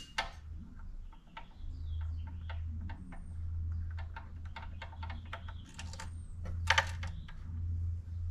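Irregular small metallic clicks and ticks of a hand tool working on the BMW E46 VANOS unit's reverse-threaded Torx bolts, with a louder cluster about two-thirds of the way in. A low steady hum sits underneath from about a second and a half in.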